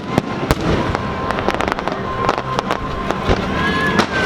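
Aerial fireworks going off: a rapid, irregular string of sharp bangs and crackles, with a long steady whistle running through most of it and a second, higher whistle near the end.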